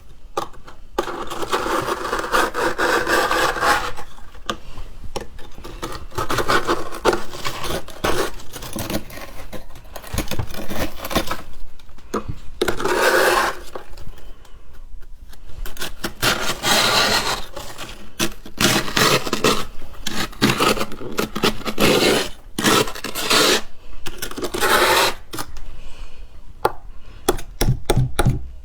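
Freshly formed frost being scraped in repeated strokes, each a second or a few seconds long with short pauses between, ending in a run of quick short scrapes.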